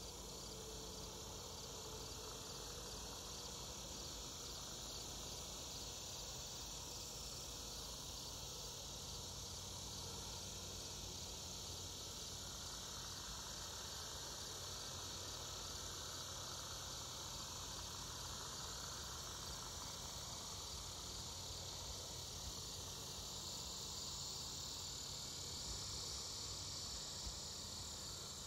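Steady chorus of insects, an even high-pitched hum that does not break or change.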